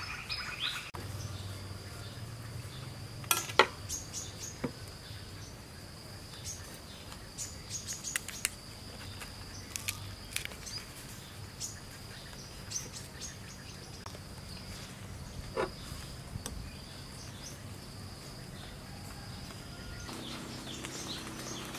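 Steady high-pitched insect trill, with scattered sharp clicks and rustles from banana leaves being folded and pinned. The trill stops near the end.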